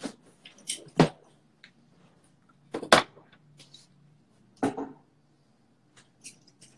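Metal C-stand being handled and set up: a string of sharp clanks and knocks, the loudest about one and three seconds in, with lighter ticks and rattles between.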